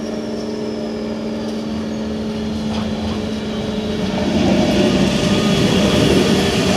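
WAG-12 twin-section electric locomotive running light past at close range: a steady hum of several tones, then, about four seconds in, louder wheel-on-rail noise as it draws level.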